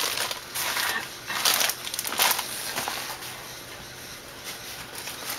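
Brown kraft paper liner of a cardboard produce box rustling and crinkling as hands push and fold it, in a few bursts over the first half, then fainter.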